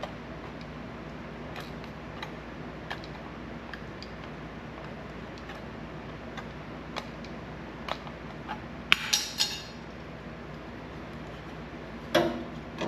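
Sheet-metal pieces being handled and set down, giving scattered light metallic clinks and taps over a steady low hum, with a cluster of sharper clinks about nine seconds in and a louder knock near the end.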